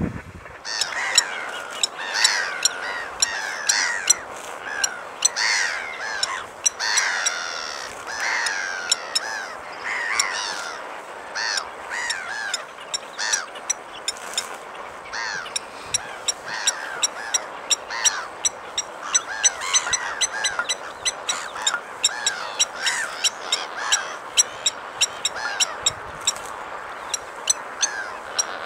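Blacksmith lapwings calling: a run of sharp, metallic 'tink' notes repeating about twice a second, with harsher, down-curving calls mixed in. The harsher calls are busiest in the first ten seconds.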